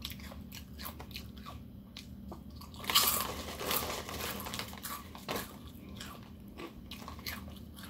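Close-up crunching and chewing of tzatziki-flavoured potato chips, with many short crisp crunches. About three seconds in, the chip bag rustles loudly for around a second as a hand goes into it.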